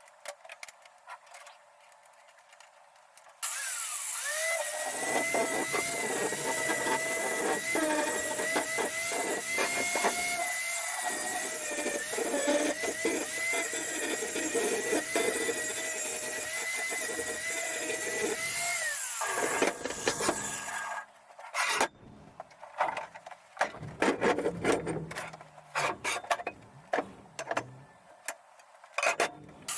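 A handheld power tool motor spins up a few seconds in, runs at a steady whine for about fifteen seconds and winds down. Scattered clicks and knocks follow.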